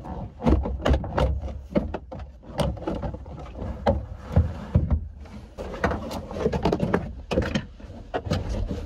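A string of sharp knocks, clicks and rattles of car body and trim parts being handled and worked loose.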